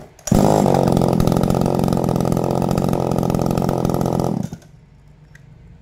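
Tanaka PowerMate top-handle two-stroke chainsaw started on the pull, catching within a fraction of a second and running steadily for about four seconds before it is switched off and stops abruptly.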